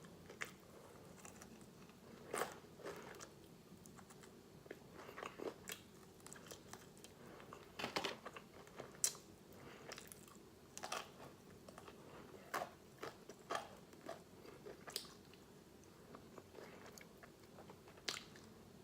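Close-miked eating of fried chicken: irregular crunching bites into the breading and wet chewing, with scattered short crackles and smacks.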